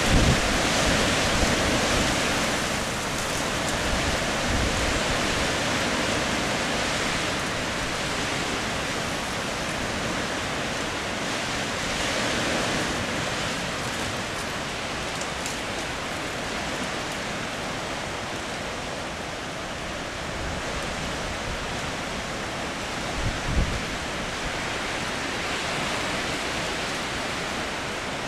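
Steady outdoor rushing noise that swells and eases slowly, with a few low bumps on the microphone.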